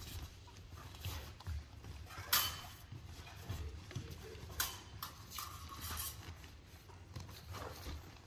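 Fencers' feet thudding steadily on the floor mat during a single-rapier bout, with sharp clashes of the steel rapier blades about two seconds in and again around four and a half and six seconds, the blades briefly ringing.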